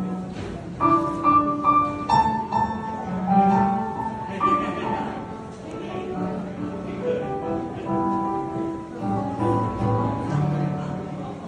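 Yamaha electronic keyboard playing a melody of separate notes over held lower notes.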